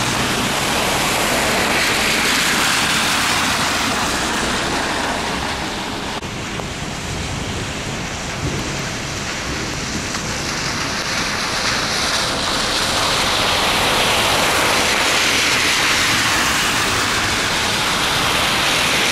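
Heavy rain with car tyres swishing through standing floodwater on the road: a steady hiss that eases a little midway and swells again in the second half as vehicles pass.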